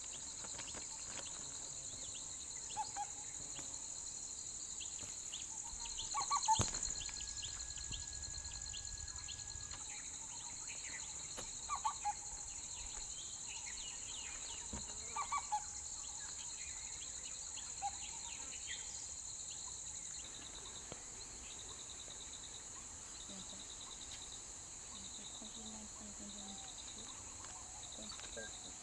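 Steady chorus of insects: a continuous high buzz with a lower trill that comes and goes in short spells in the second half. Scattered short bird chirps, and one brief louder crack or thump about six seconds in.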